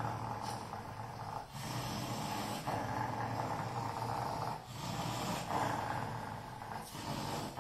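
Dog growling during a tug-of-war game with a rope toy, in long continuous stretches broken by a few short pauses.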